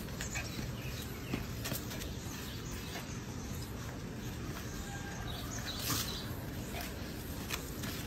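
Steady outdoor background noise with faint bird chirps and a few brief clicks.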